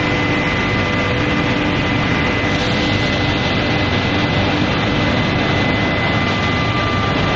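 Induction quenching and tempering line for metal bars running: a steady, loud industrial roar with several steady whining tones over it.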